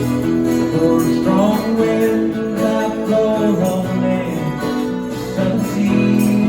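A folk band playing an instrumental passage of a country-folk ballad, led by strummed acoustic guitar, with held melody notes that slide between pitches.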